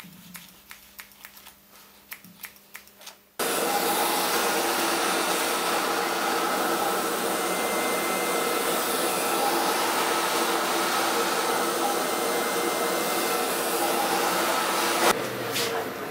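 Light snipping of scissors, then a hair dryer switched on about three seconds in, running steadily with a motor whine, and switched off about a second before the end.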